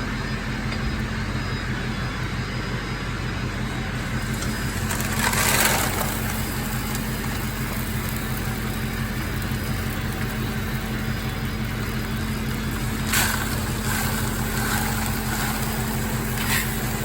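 Farm truck engine running steadily with a low hum, with a brief louder rush about five seconds in and a sharp knock about thirteen seconds in.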